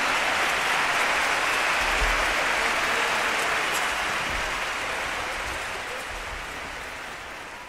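A dense, steady hiss that fades out gradually over the last few seconds.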